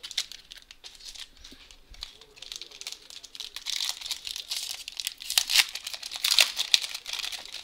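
A foil hockey card pack wrapper being torn open and crinkled by hand. The crackling grows louder and denser about halfway through.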